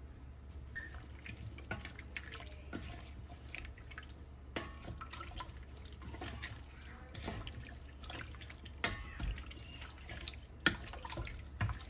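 Wooden spoon stirring a chunky potato, chicken and broth filling in a large enamelware stockpot: liquid sloshing, with irregular knocks of the spoon and food against the pot, sharper near the end. A steady low hum lies underneath.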